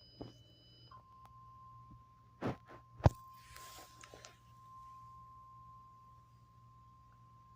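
A steady electronic alert tone on one pitch sounds continuously. It starts about a second in, as a higher pair of steady tones cuts out, and fits an emergency alert for a tornado warning. A couple of knocks and a sharp clack come about three seconds in.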